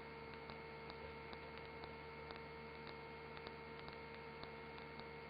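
Faint electrical hum with soft ticks about twice a second: the low noise floor of the helicopter's recorded radio and intercom audio between transmissions.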